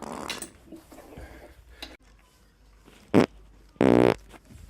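A person farting: a short sharp crack about three seconds in, then a loud buzzing fart of steady low pitch, lasting under half a second.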